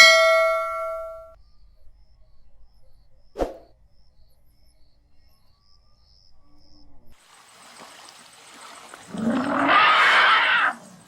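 A single bell-like chime rings out and fades over about a second, then a short click. Near the end comes a loud, noisy elephant call lasting about a second and a half.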